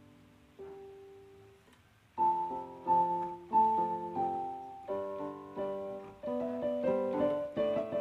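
Background piano music: a few soft, sparse notes, then fuller chords struck one after another from about two seconds in, each ringing and fading.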